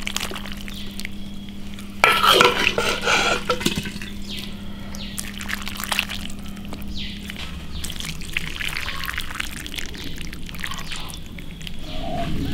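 A ladle scooping chunks of braised pork with their sauce into a bowl: wet pouring and dripping of the sauce with scattered clicks of the ladle, loudest about two seconds in.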